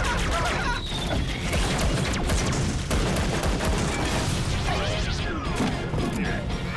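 Cartoon soundtrack: music mixed with busy, rapid clattering and knocking sound effects, with a few short sliding squeaks.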